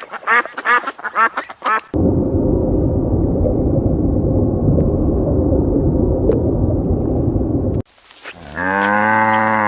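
A duck quacks in a quick series of short calls for the first two seconds. A steady, dense low noise then runs for about six seconds. Near the end a cow gives one long low moo.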